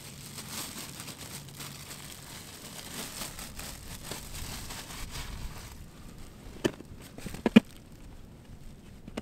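Plastic bread bag crinkling and rustling as slices of white bread are pulled out and dropped into a plastic bucket, with a few sharper knocks about seven seconds in, the loudest sounds here.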